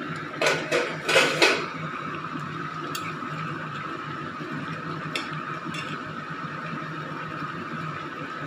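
A metal lid lifted off a metal pan with a clatter of several knocks about a second in. Then a metal spatula stirs a simmering curry, tapping the pan a few times, over a steady hum.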